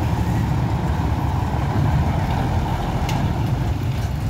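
A coach bus's engine runs with a steady low rumble as the bus creeps across a steel ferry ramp onto the ferry, with motorcycle engines running close by.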